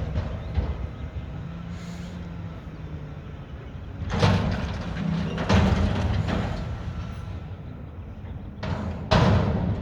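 Mack McNeilus front-loader garbage truck's engine running steadily, with loud metal bangs and clatter about four and five and a half seconds in and again near the end.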